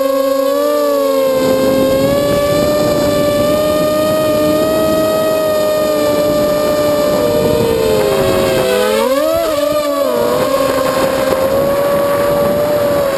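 Eachine Racer 250 quadcopter's four brushless motors and propellers whining in flight, several close pitches at once with a rushing noise under them. Near the end the pitches drop and swing up and down as the throttle changes.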